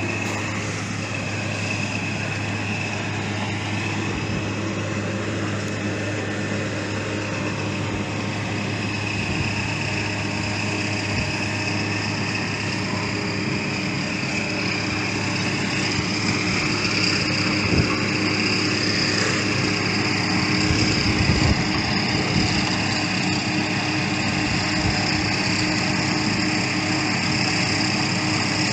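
Engine of road-construction machinery running steadily, with a steady hum and a few louder knocks about two-thirds of the way in.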